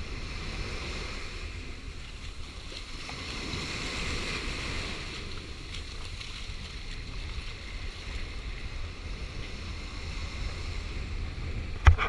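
Small waves washing up and lapping along a sandy shoreline, with wind rumbling on the microphone. A sharp knock right at the end is the loudest moment.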